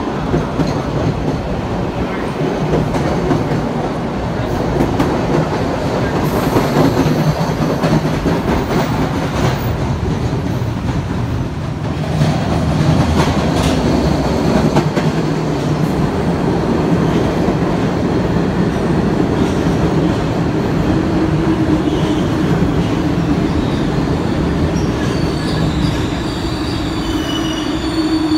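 MBTA Red Line subway trains in an underground station: one train runs out past the platform, then an 01700-series train pulls in with wheel clatter. Its wheels squeal high near the end as it brakes to a stop.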